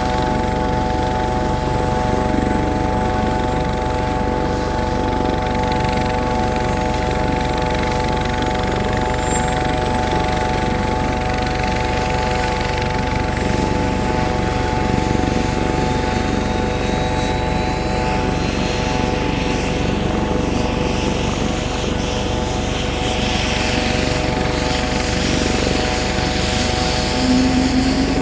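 Helicopter running steadily, a constant whine held over a low rotor and engine rumble.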